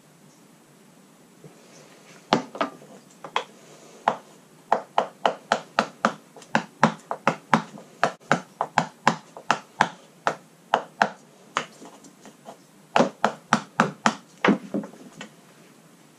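A hand scraper working in short, sharp strokes, about two a second with a brief pause late on, against the gel-coated deck of a Kawasaki STX-12F jet ski, lifting old traction-mat foam and adhesive softened with solvent.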